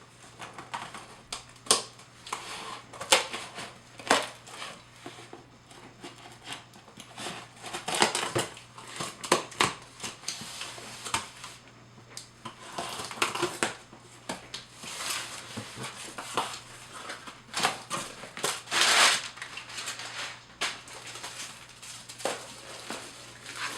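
Cardboard box and plastic packaging being opened and handled: irregular rustling, crinkling and tearing with many small knocks and clicks.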